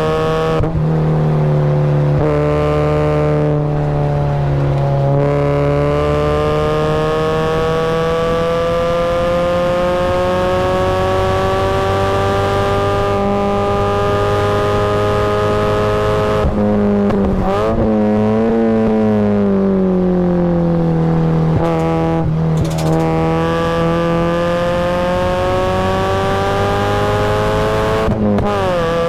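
Supercharged Mazda Miata's four-cylinder engine pulling hard on track, its pitch climbing steadily through long full-throttle stretches and dropping sharply several times at gear changes and braking, with a spell of quick up-and-down rev changes in the middle.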